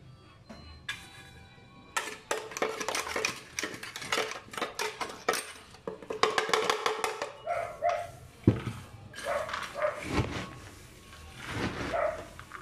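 Peanuts in a plastic tub rattling and scraping as they are stirred with a spoon and shaken with chili, with a sharp knock about eight seconds in.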